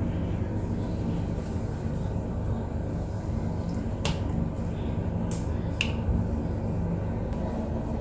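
A steady low hum, with three short light clicks or taps about four, five and six seconds in.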